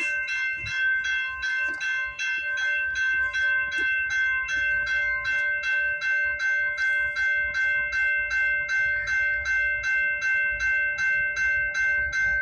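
Railway level-crossing warning bell ringing steadily at about three strikes a second, with a low rumble underneath: the crossing signal is warning of an approaching train.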